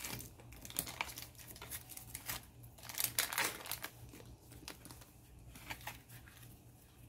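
Crinkly wrapper being unwrapped by hand, crackling in irregular bursts that are busiest around three seconds in and thin out toward the end.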